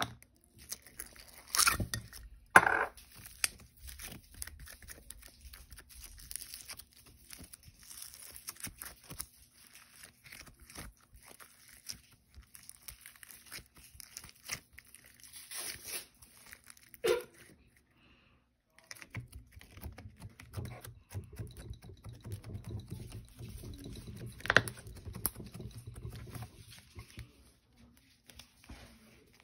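Hand-worked slime being squished and stretched, giving many small sticky clicks and pops, with a few louder ones.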